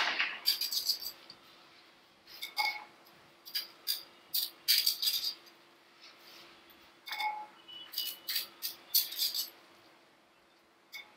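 Steel slotted spoon clinking and scraping against the rim of a large steel cooking pot as par-boiled rice is scooped out and tapped off. The clinks come in several quick clusters with a short metallic ring, over a faint steady hum.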